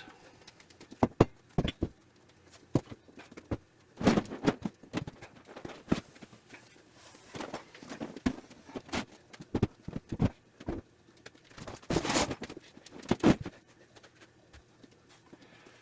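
Irregular knocks and clunks of heavy objects being set down as weights on a freshly glued steel work surface, with louder ones about four seconds in and twice around twelve to thirteen seconds in.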